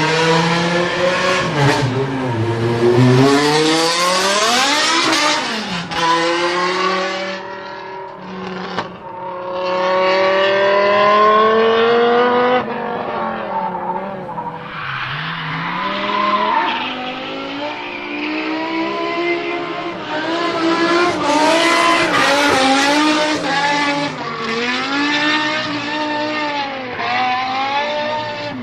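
BMW E60 M5's S85 5.0-litre naturally aspirated V10 revving hard, its pitch climbing and then falling back several times over, with a sharp drop about halfway through.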